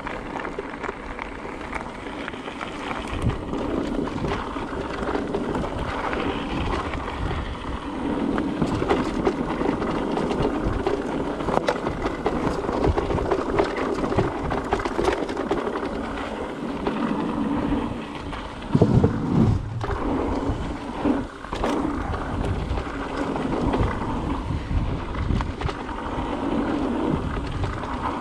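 Mountain bike riding down a dirt flow trail: a steady rolling rumble of tyres with the bike rattling and knocking over the bumps, and a louder thump about nineteen seconds in.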